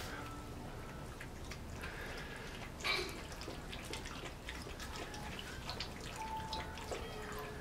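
Australian Shepherd puppies moving about: scattered small clicks and taps, a sharper click about three seconds in, and a few faint short whimpers.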